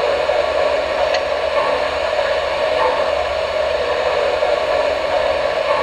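Steady, even hissing noise with no beat or chuffing in it.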